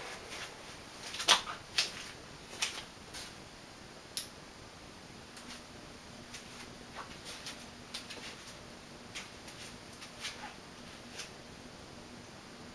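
Canarm CP48 ceiling fan running on its top speed: a steady rush of air, with a faint low hum coming in about five seconds in. Scattered light clicks sound throughout, the sharpest in the first few seconds.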